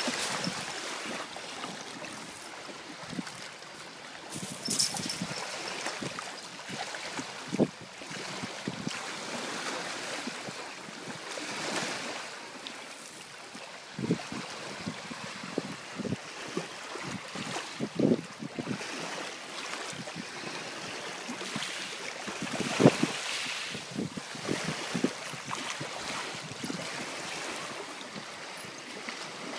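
Small waves lapping and washing over pebbles and rocks in shallow sea water, with now and then a short sharper splash as a dog wades through the shallows; the loudest splash comes about 23 seconds in.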